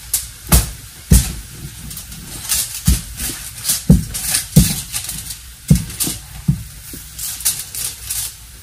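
Kitchen handling sounds: irregular knocks and taps, some with a dull thud, as a metal spatula works a talipatti on a flat griddle and dough is patted out on foil on the counter.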